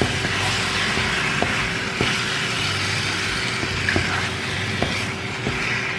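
Curry-seasoned chicken pieces sizzling in a nonstick frying pan as a spatula stirs them, with a handful of sharp clicks and scrapes of the spatula against the pan.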